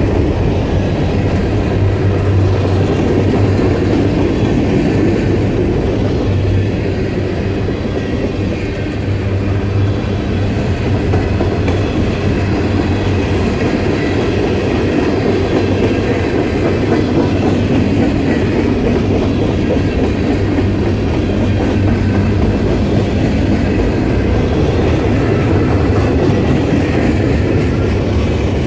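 Freight cars (covered hoppers, tank cars and boxcars) rolling past, with a steady rumble of steel wheels on the rails and the clickety-clack of wheels over rail joints.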